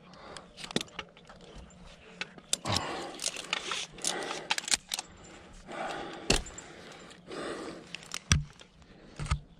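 Metal clinking and jangling of a climbing arborist's carabiners and rigging hardware, with irregular clicks, rustling and a few heavier knocks, the loudest about two-thirds of the way through.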